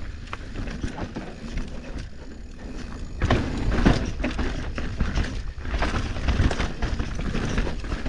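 Giant Reign mountain bike riding down a rough, rocky dirt trail: a steady low rumble from the tyres with frequent clicks, knocks and rattles from the bike as it hits rocks. It gets louder and busier about three seconds in.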